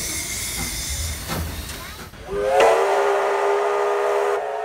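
Steam locomotive letting off a hiss of steam, then its steam whistle blows about two seconds in: one long, steady blast that slides up slightly as it starts.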